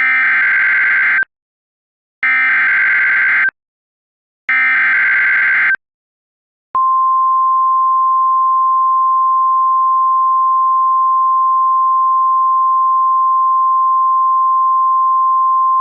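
Emergency Alert System SAME header: three harsh bursts of digital data tones, each a little over a second long with about a second between them. Then, about seven seconds in, the single steady 1050 Hz NOAA Weather Radio alert tone begins, signalling a severe thunderstorm warning.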